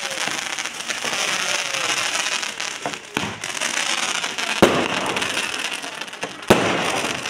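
A fireworks battery firing shots skyward with a steady crackling hiss. Two sharp bangs stand out, one a little past halfway and one near the end.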